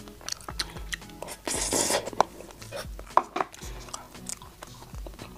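Metal spoon clicking and scraping against a clear plastic tub of cake, with a brief rustle about a second and a half in and a few sharper clicks, amid close-miked eating sounds.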